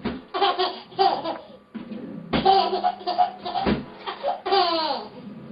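A baby laughing in repeated bursts, some falling in pitch, as a dog licks and nuzzles its face.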